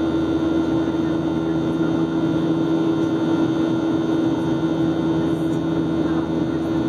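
Steady cabin noise inside a Boeing 737-700 in its climb after takeoff: the drone of its CFM56-7B turbofan engines and the rush of air along the fuselage, with a constant low hum over the top.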